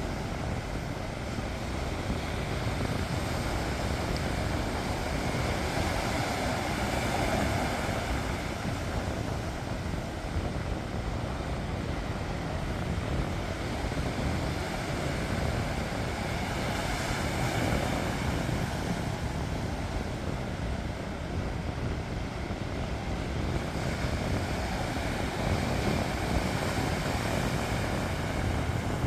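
Sea waves breaking and washing up the shore, the surf swelling about every nine seconds over a steady rumble.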